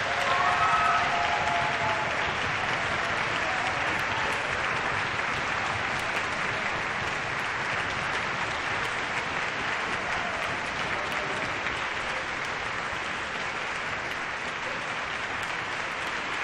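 Concert audience applauding steadily after an orchestral performance, easing off slightly towards the end.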